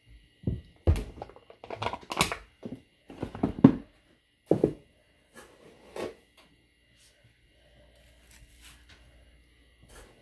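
A run of knocks and thumps as kitchen containers are handled over the foil pan, then a faint soft rustle near the end as granulated sugar is poured onto the corn in the foil pan.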